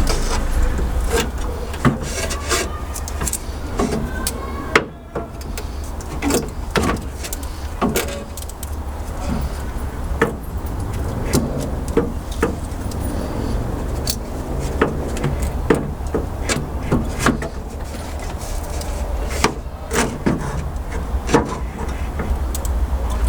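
Scattered, irregular clicks and knocks of a radiator, hoses and hand tools being handled during work on a car, over a steady low rumble.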